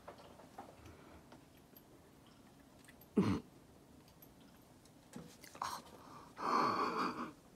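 Kittens play-fighting on carpet: soft scuffling and light clicks, a sharp louder noise about three seconds in, and a louder noisy sound lasting about a second near the end.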